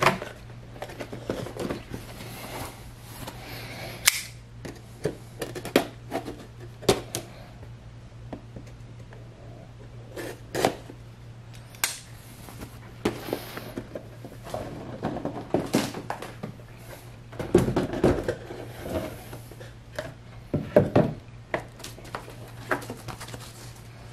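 Cardboard product boxes and foam packing being handled: scattered knocks, taps and rustles as a box lid is pulled off and the foam insert lifted out. A steady low hum runs underneath.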